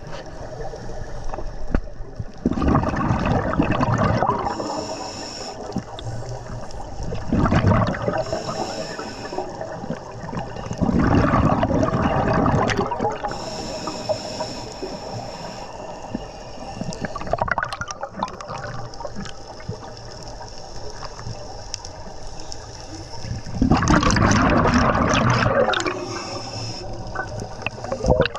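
Scuba diver breathing through a regulator underwater: exhaled air bursts out as bubbles in loud, gurgling rushes, with a short high hiss from the regulator on each inhalation between them. The breaths repeat every few seconds.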